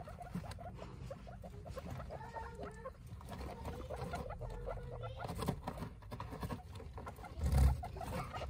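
Guinea pigs making a quick series of short, soft squeaking notes, with rustling in wood-shaving bedding as they move about. A single louder thump comes near the end.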